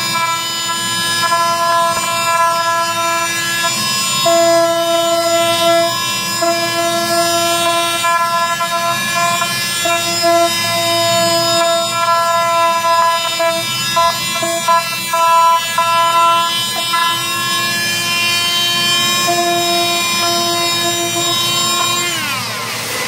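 Electric hand sander running with a steady high whine as it sands the corners of a floor. Its pitch falls near the end as the motor winds down.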